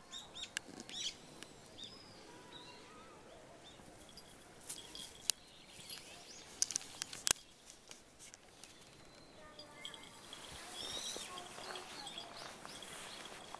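Quiet outdoor ambience with small birds chirping on and off, a few sharp clicks between about five and seven seconds in, and a faint steady high trill from about ten seconds in.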